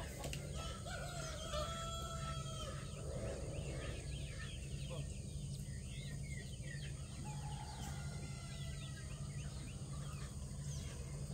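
A rooster crows twice, two long drawn-out crows about half a second and about seven seconds in, while a chicken flock keeps up short clucks and chirps. A low steady hum runs underneath.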